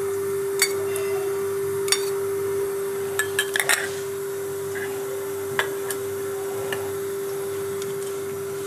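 A steady low-pitched hum, with a few light metal clinks of a steel spoon against the kadai as refined oil is spooned into the hot pan; the clinks come about a second apart early on and in a quick cluster partway through.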